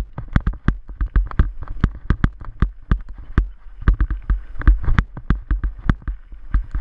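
Mountain bike rattling and knocking over a bumpy dirt trail, an irregular clatter of several knocks a second, with a steady low wind rumble on the camera microphone.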